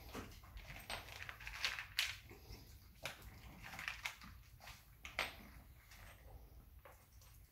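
A puppy crunching dry kibble from a plastic food dish: irregular crisp crunches and small clicks of kibble against the bowl.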